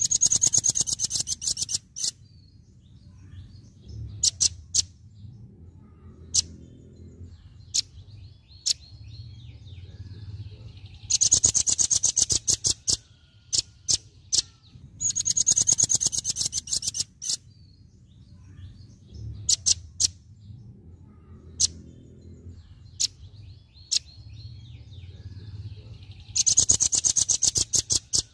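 Velvet-fronted nuthatch singing its rapid 'tembakan' (shooting) song: four bursts of very fast, sharp, high-pitched notes, each lasting a second or two, with single sharp chips between them.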